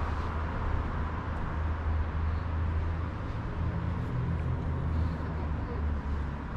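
Outdoor ambience of a small town square: a steady low rumble with a faint hiss above it, and no single sound standing out.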